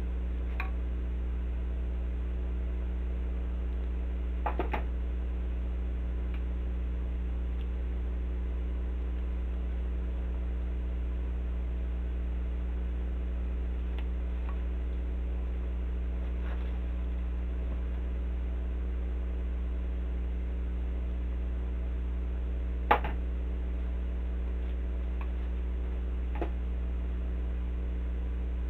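Steady low electrical hum, with a few small clicks and taps from hands working at the craft table; the sharpest click comes about three quarters of the way through.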